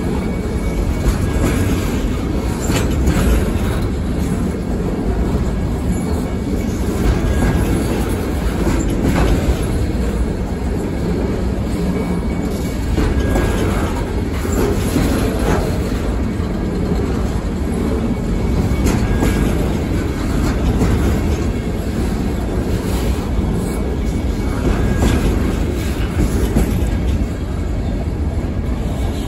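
Freight cars of a local trash train rolling past at close range: a steady low rumble with irregular wheel clicks over the rail joints and a faint high wheel squeal now and then.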